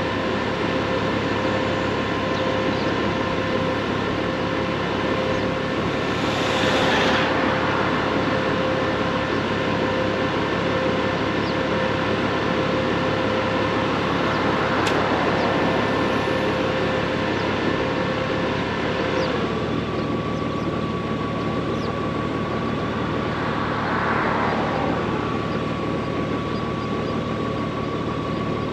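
Honda Gold Wing motorcycle engine idling steadily with a constant hum, while other vehicles pass by three times, each rising and fading over a couple of seconds.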